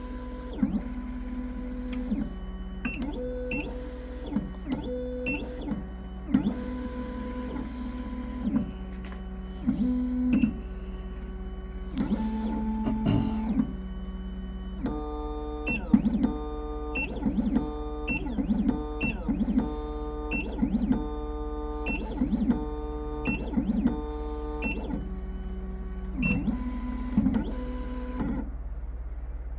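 Triton key machine decoding a key: its stepper motors whine in steady tones that jump from pitch to pitch as the 1 mm decoder probe traces the key's cuts, with clicks and short pauses between moves, over a steady low hum.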